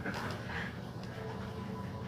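Quiet stretch of television audio from a drama, with faint background music.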